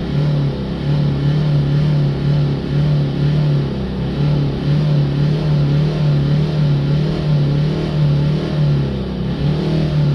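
Ford Ranger diesel engine running at steadily held raised revs, to heat the exhaust while the exhaust gas temperature sensor readings are watched.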